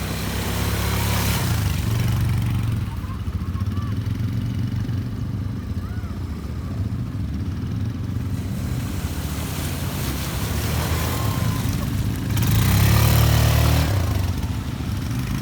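ATV engine running steadily, swelling louder for a second or two near the end.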